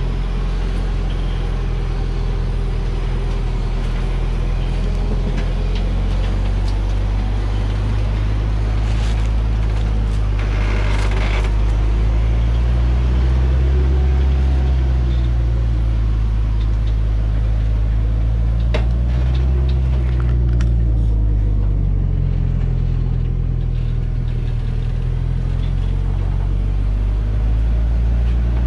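Engine of a Hoa Mai truck overloaded with acacia logs, running low and steady as it crawls down a rutted dirt forest track; its pitch rises and falls a little midway. A short burst of noise comes about eleven seconds in and a sharp click shortly before twenty seconds.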